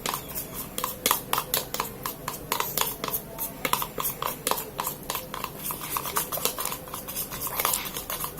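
A stirrer clicking and scraping against a container, several irregular clicks a second, as clear glue with blue powder colouring is stirred.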